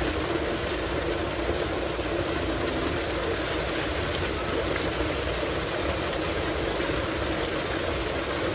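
Tubewell water gushing steadily out of a large outlet pipe and splashing into a concrete tank, a constant rushing with no letup.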